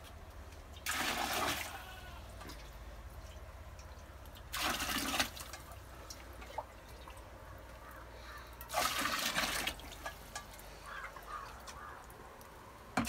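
Water being ladled and poured in the cooling pan on top of a wood-fired raksi still: short splashes about every four seconds, three of them plus one starting at the very end, over the faint crackle of the fire.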